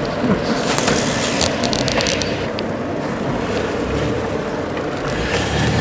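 Old van moving slowly over rough dirt with its engine running low and steady, its body and loose parts clattering. A run of sharp knocks and rattles comes in the first few seconds.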